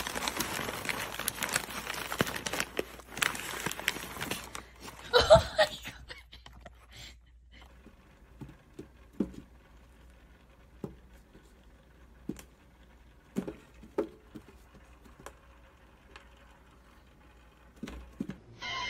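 A paper bag rustling and crinkling as a cat pushes its head inside and moves about in it. About five seconds in, a short loud pitched sound bends up and down. After that comes a quiet stretch of faint, irregular light taps, as a cat paws at the plastic face and hands of a wall clock.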